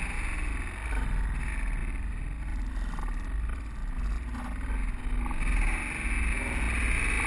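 Rushing airflow and low buffeting on the onboard camera of an Art Tech Diamond 2500 RC glider in flight.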